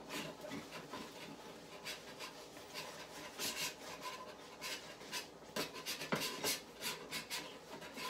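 A pan being scrubbed in the sink: irregular rasping scrub strokes, with a sharper knock about six seconds in.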